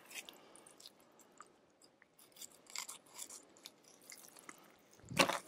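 Fillet knife slicing through cod flesh and scraping along the backbone as a fillet is cut free: faint, wet scrapes and small clicks. A brief louder sound comes near the end.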